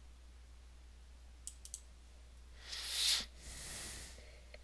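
Three quick computer mouse clicks about one and a half seconds in, then a short rush of noise lasting about half a second and a fainter one after it, over a faint steady low hum.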